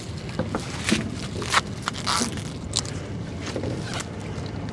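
Scattered scrapes, clicks and knocks of a gill net being hauled and handled aboard a small boat.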